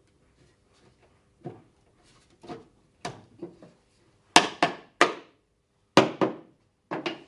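Wooden furniture parts knocking against each other as the sections of a traditional Chinese display shelf are handled and fitted together: about a dozen sharp wooden knocks, often in quick pairs, louder from about four seconds in.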